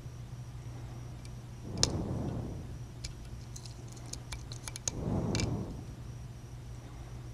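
Faint, irregular metallic clicks and ticks of a lock pick working the pins of a modified 5-pin Corbin pin-tumbler lock held under tension. Two longer, soft rushes of noise come about two and five seconds in, over a steady low hum.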